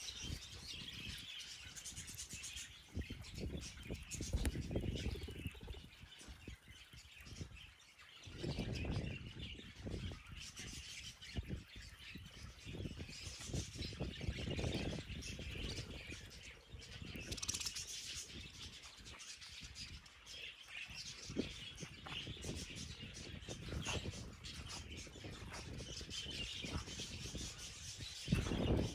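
Many small birds chirping and twittering continuously, with intermittent low rumbling underneath.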